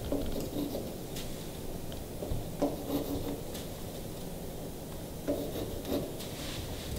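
Pencil compass being stepped along a wooden knee-wall cap, marking baluster spacing: light scratching and rubbing of the point and pencil on the wood, with a few small irregular ticks.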